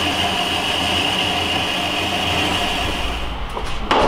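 Horizontal metal-cutting bandsaw running and cutting through a metal plate clamped in its vise, a steady grinding hum with a high whine. The cutting sound drops away about three seconds in.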